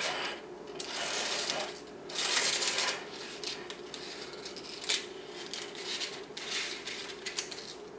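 Thin acetate plastic strip crinkling and rustling as it is peeled away from a frozen ice cream cake, in several short bursts, the loudest about two to three seconds in.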